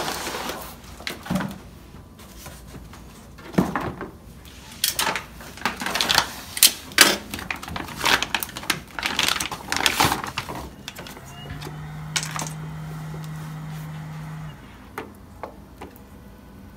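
Clear plastic bag crinkling and rustling, with cardboard box handling, as a resin cartridge is unwrapped by hand. This is followed by a steady low hum for about three seconds and a few light clicks near the end as the cartridge is handled at the printer.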